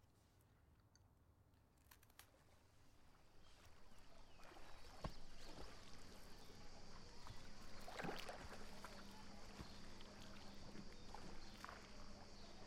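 Faint waterside ambience: gentle water lapping with a few soft knocks, over a steady thin high hiss that sets in a few seconds in after near silence.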